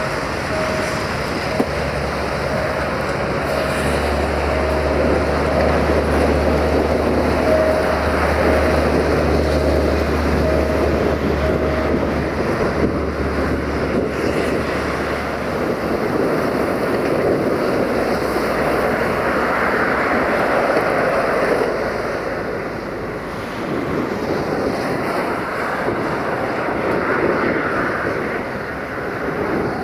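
Loaded open freight wagons rolling away along the track: a steady rumble of wheels on the rails.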